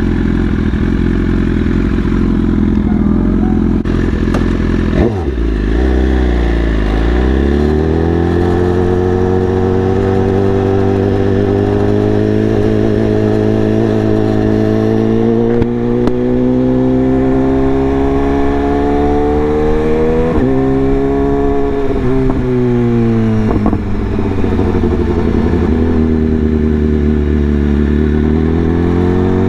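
BMW S1000RR's inline-four engine running under way. The engine note dips about five seconds in, climbs steadily as the bike accelerates, then drops in quick steps around twenty seconds in and rises again near the end.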